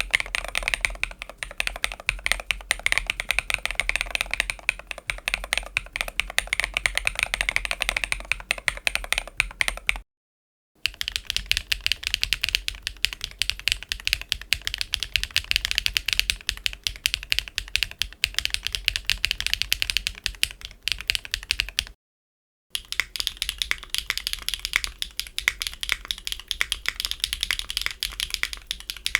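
Fast typing on mechanical keyboards fitted with Keygeek Intro linear switches, a dense clatter of keystrokes. It comes in three runs split by two short silent gaps, each run from a different keyboard build. The first is lower and fuller, the third brighter and clickier.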